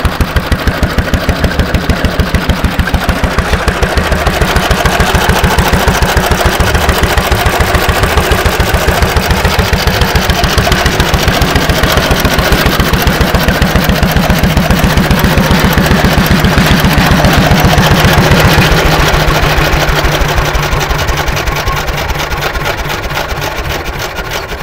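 New Way engine off a Centaur tractor running with a fast, even firing beat. It gets louder over the first few seconds and eases off near the end.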